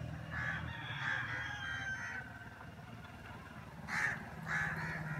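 Crows cawing, short harsh calls repeated about every half second: a run of four, a pause, then three more near the end, over a low steady hum.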